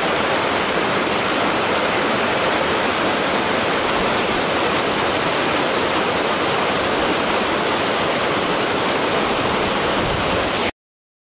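Water rushing down a small rocky cascade: a steady, full rush of falling water that cuts off abruptly near the end.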